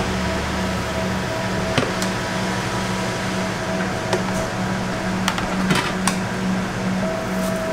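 Steady machine hum of kitchen equipment, with a few light knocks and scrapes as a plastic rice paddle scoops cooked rice from a rice cooker pot into a plastic bowl.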